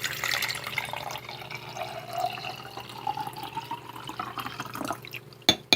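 Water poured from one drinking glass into another, splashing steadily while the tone of the filling glass climbs slightly. Near the end come two sharp clicks, like glass knocking.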